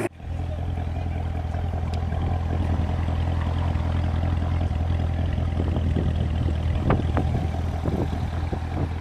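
Equus ThrowbackS engine idling steadily with a deep, even hum. A few short clicks are heard near the end.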